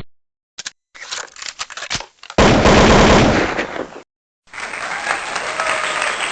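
Gunshot sound effects: a single short report, then a string of separate shots, then a loud unbroken burst of automatic fire lasting about a second and a half. After a brief gap, a steady crackling noise starts about four and a half seconds in and carries on.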